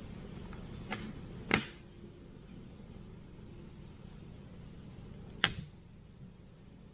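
Campfire burning, with a low steady rumble and sharp popping snaps of the firewood: three pops, about a second in, a moment later, and near the end.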